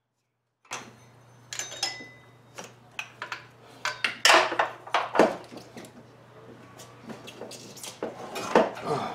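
Irregular metallic clanks and knocks of hand work around a car's engine bay, some of them loud, over a steady low hum.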